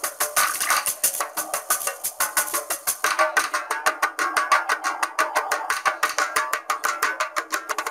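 Instrumental children's music with a quick, clicking percussion beat.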